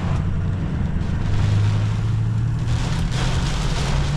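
A steady low engine drone, with a rushing noise growing louder about three seconds in.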